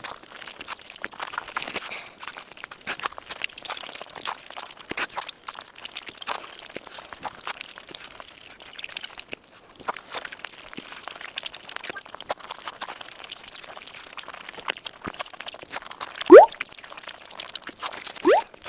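Close-miked eating: crunchy chewing with crackling and crinkling. Near the end come two short rising squeaks, the first the loudest sound in the stretch.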